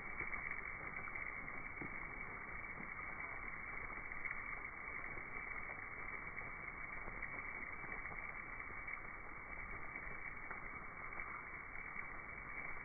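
Steady rushing whoosh of a large swarm of Mexican free-tailed bats flying out of the cave, their massed wingbeats blending into one continuous noise.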